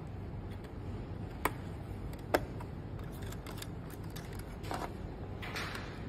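Two sharp plastic clicks about a second apart, the second louder, as small wire connectors are pushed into their sockets on a projector's circuit board, followed later by softer handling rustle of cables and plastic parts. A steady low hum runs underneath.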